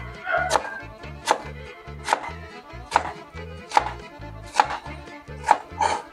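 A kitchen knife chopping peeled cucumber into small cubes on a plastic cutting board, blade strokes hitting the board at a steady pace, with background music playing underneath.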